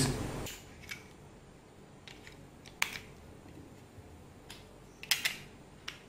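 Scattered small plastic clicks and taps as AAA batteries are fitted into a plastic infrared remote control and its battery cover is handled. The sharpest click comes a little under three seconds in, with a quick pair about five seconds in.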